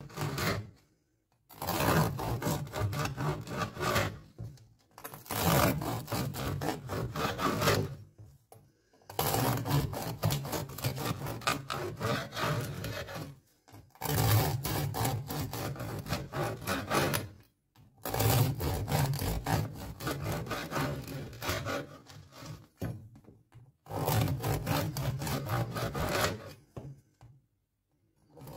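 A knife sawing through a crusty baguette on a cutting board, slice after slice, in about seven stretches of a few seconds each with short pauses between.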